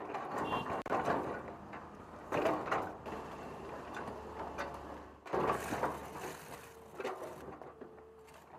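Hydraulic excavator engine running with a steady low hum under irregular clanks and scrapes of road-repair work, with louder clatters about two and a half and five seconds in.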